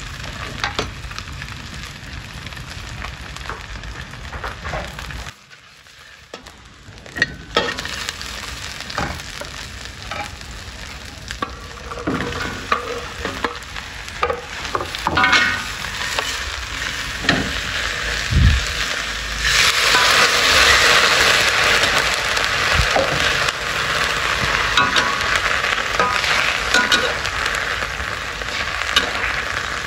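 Fish balls and strips of luffa gourd sizzling in hot oil in a steel wok, with a metal spatula scraping and clicking against the pan as it stirs. The sizzle dips briefly about five seconds in and grows louder about two-thirds of the way through.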